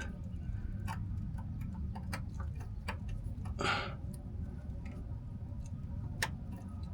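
Sparse small clicks and taps of hand work on truck engine parts, with a short scraping rustle about three and a half seconds in, over a steady low hum.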